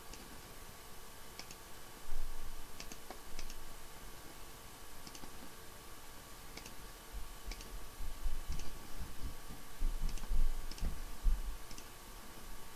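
Computer mouse clicking: about a dozen single clicks at uneven intervals, over a faint steady electrical hum, with a few dull low knocks near the end.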